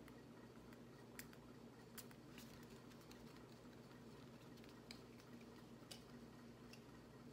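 Near silence: room tone with a steady low hum and a few faint clicks as a paper perfume sample card and its small vial are handled.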